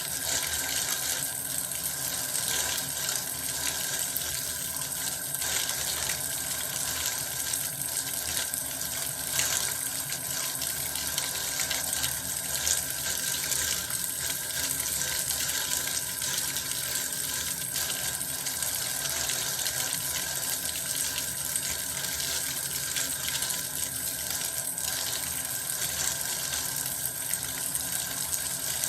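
Bath water running steadily, a continuous even rush of water at a constant level.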